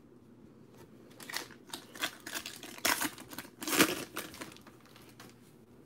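A trading card pack wrapper being torn open by hand, crinkling and tearing in a string of crackling bursts for about three seconds, loudest near the middle.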